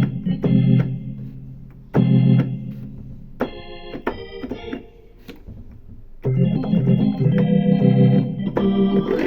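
Organ tone of a Roland VR-09 keyboard played in chords: two short chords, a quick run of notes, then a longer held chord near the end.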